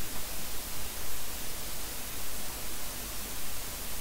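Steady hiss and static of recording background noise, with no other distinct sound.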